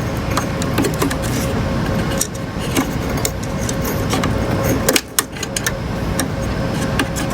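Small clicks and rattles of metal and plastic parts being handled while an oscilloscope is taken apart, over a steady low rumbling background noise with a faint steady hum. A couple of sharper clicks come about five seconds in.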